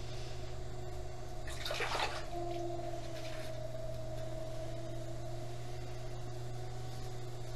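Electric potter's wheel motor humming steadily as the wheel spins, with a brief wet swishing noise about two seconds in as hands work the wet clay.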